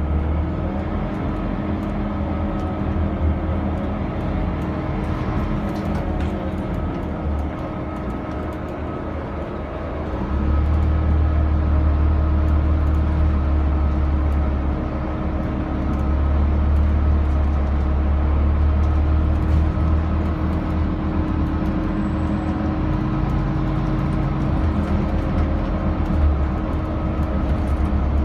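Scania K320UB6 city bus heard from inside the passenger cabin: its rear-mounted 9-litre five-cylinder diesel and drivetrain make a steady low drone with a faint whine over it. The drone grows louder about ten seconds in as the bus pulls harder, eases for a moment, then picks up again.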